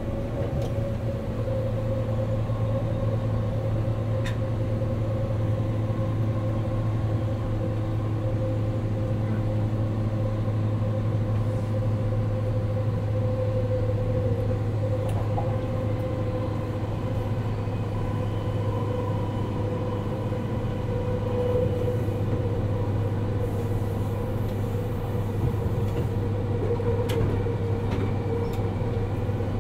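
Inside the motor car of a JR 189-series electric train (MoHa 189-20) running at a steady speed: a steady hum from its MT54 DC traction motors and gearing over the noise of wheels on rails.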